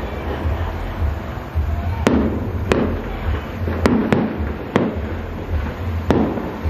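Aerial fireworks exploding overhead: sharp bangs at irregular intervals, about seven of them from two seconds in, each trailing off in an echo, over a steady low rumble.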